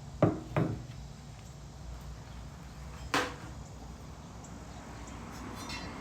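Three short knocks as a steel lawnmower blade is handled and set onto a blade balancer: two close together just after the start, a third about three seconds in.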